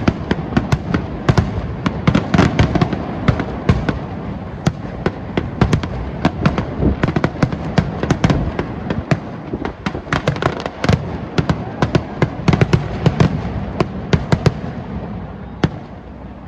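Fireworks going off: a dense, irregular run of sharp pops and crackles, several a second, that thins out and quietens near the end.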